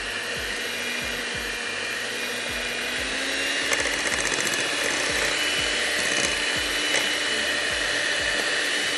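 Electric mixer running steadily, its beaters creaming sugar, butter and eggs for a cake batter, the motor's whine rising a little in pitch about three seconds in, with a couple of light knocks in the middle.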